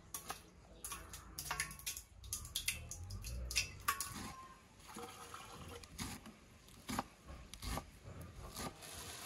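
A kitchen knife chopping fresh herbs on a wooden cutting board: irregular sharp taps of the blade through the leaves onto the wood.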